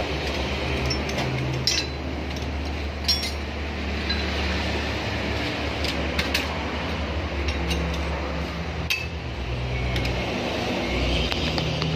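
Scattered metallic clinks and taps of hand tools and loose parts against a 1982 Mitsubishi L300 petrol engine being dismantled, over a steady low hum.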